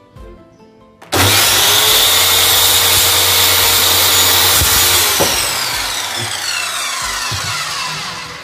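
Bosch GKS 140 corded circular saw switched on about a second in, running at full speed through a cut in a hardwood board. Near the middle the trigger is released and the blade winds down, its whine falling steadily in pitch and fading over the last three seconds.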